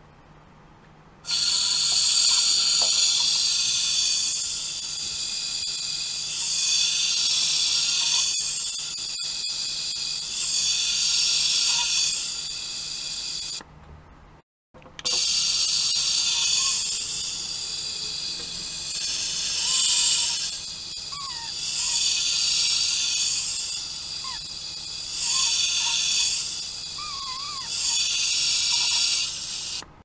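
Handheld sonic vibrating device running with its tip pressed against an ultrasonic probe: a harsh, high hiss that switches on about a second in, cuts out for about a second near the middle, then resumes, swelling and easing every couple of seconds.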